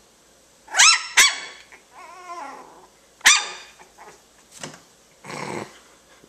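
Dachshund puppy barking: high, sharp yaps, two close together about a second in and another about two seconds later, with a short wavering growl between them. A brief rustle follows near the end.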